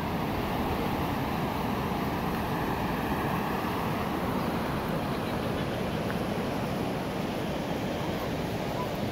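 Shallow river rapids rushing over stones: a steady hiss of running water, with wind rumbling on the microphone.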